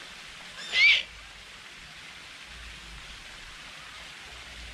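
A bird gives one short, high call about a second in, over a steady hiss.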